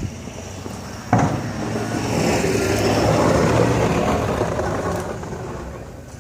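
Snowplow vehicle's engine running, with a sharp clank about a second in, then a rush of noise that swells and fades over a few seconds as it works.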